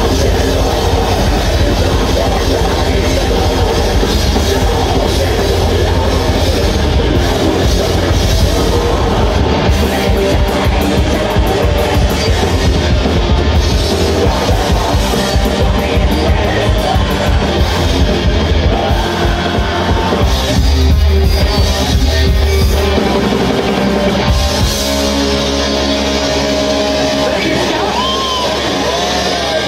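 Live heavy metal band playing loud: distorted electric guitars, bass and a full drum kit, with vocals. Near the end the drums fall away and a held, bending guitar note carries on.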